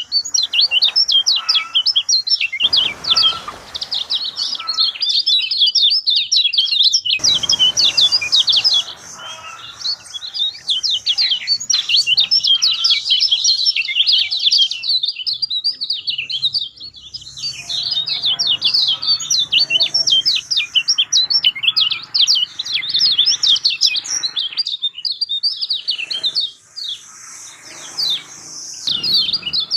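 Lemon-bellied white-eye (kecial kuning) singing a fast, continuous twittering song of rapid high chirps, broken by a few short pauses.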